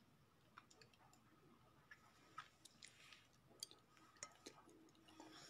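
Near silence: room tone with faint, scattered clicks and ticks at irregular moments.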